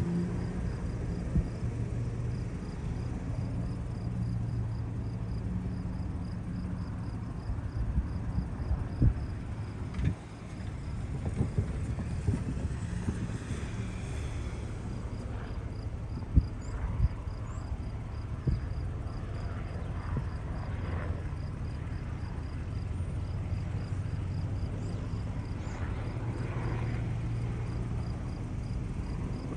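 Distant crop-spraying helicopter droning low over the fields, with wind buffeting on the microphone and a few sharp knocks. A steady, evenly pulsed high chirping of insects runs through most of it.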